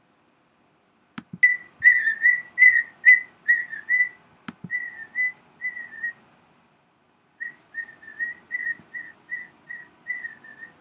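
Cockatiel whistling a quick run of short, wavering notes, about two or three a second, breaking off for about a second midway and then starting again. Two sharp clicks come in, one just before the whistling starts and one about four and a half seconds in.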